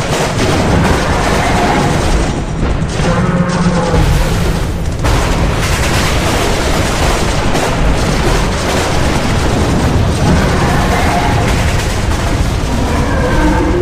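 Loud, dense battle sound: continuous gunfire and booms mixed with music.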